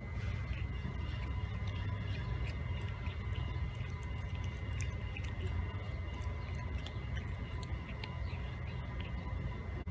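Cat chewing raw chicken wings: a run of small, irregular wet clicks and crunches over a steady low background rumble.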